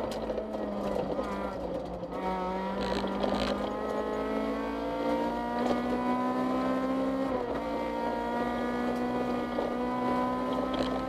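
Rally car engine heard from inside the cabin, pulling hard with its pitch climbing steadily through a gear. About seven seconds in the pitch drops suddenly at a quick upshift, then climbs again.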